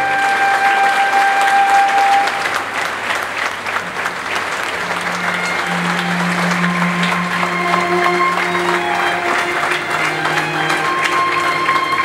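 An orchestral chord dies away in the first couple of seconds as a large concert audience breaks into sustained applause. A few long held notes sound under the clapping later on.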